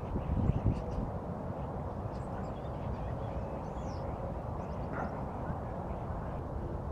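A few faint, scattered bird calls over a steady low rumble, with a louder low swell about half a second in.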